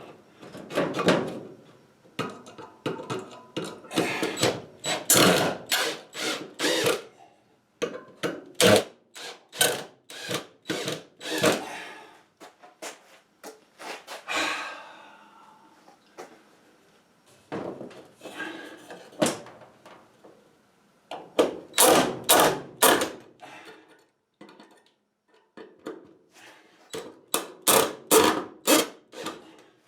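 Hammer driving toenailed nails into a 2x4, in several runs of quick, sharp blows with short pauses between them.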